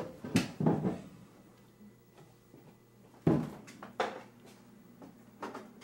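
Kitchen handling noises: a run of sharp knocks and clunks, two close together near the start, the loudest about three seconds in, another a second later and a fainter one near the end, like cupboard doors and dishes being moved about.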